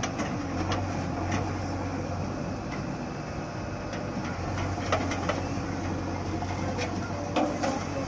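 JCB 3DX backhoe loader's diesel engine running steadily as the backhoe arm digs and swings a bucket of sand, with several sharp metallic knocks from the arm and bucket.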